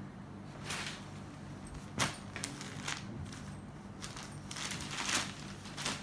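Cloth rustling and swishing as a printed saree is handled, unfolded and spread out on a table, in several separate swishes with a sharp tap about two seconds in; a faint steady low hum runs underneath.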